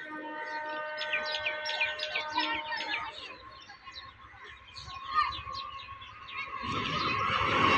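Birds chirping in quick, repeated calls, then an approaching EMU electric local train whose rail noise rises steadily through the last second or so.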